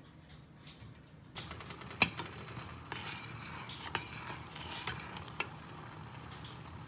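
Coconut milk simmering in a stainless steel saucepan, hissing and bubbling, while a metal spoon stirs and clinks against the pan, with one sharp clink about two seconds in. The first second or so is quieter, with only soft scrapes of a spatula.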